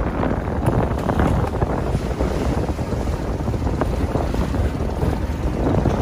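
Strong wind blowing across the microphone on the deck of a small trawler under way, over a steady low rumble of the boat and rough sea washing along the hull.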